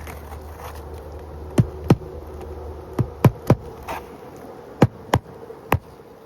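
Hand hammer driving roofing nails into asphalt shingles: eight sharp strikes in short groups of two and three.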